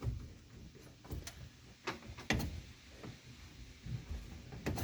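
Faint scattered clicks and knocks of hands fumbling to plug a wiring connector into the ignition switch under a van's dashboard, the clearest knock about halfway through.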